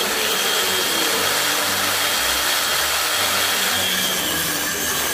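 Electric power tool running at full speed after switching on, a steady high whine over loud hiss.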